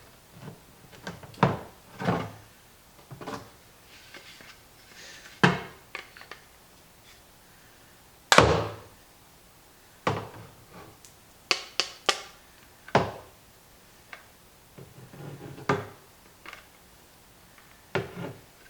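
Irregular knocks and thunks, about a dozen, on the plastic lid ring of a compost tumbler, as its old aluminum rivets are driven out. The loudest comes about eight seconds in, and there are three quick ones around twelve seconds.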